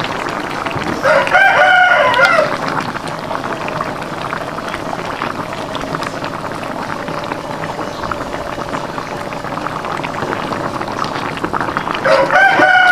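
A rooster crows twice, once about a second in and again near the end, each crow a little over a second long. Between the crows, a pot of chili sauce bubbles steadily at the boil.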